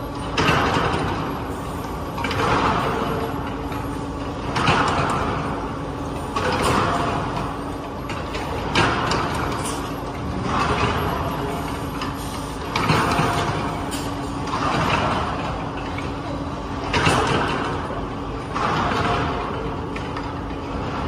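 Bag filling and conveying line running with a steady hum, and a hiss that comes back about every two seconds.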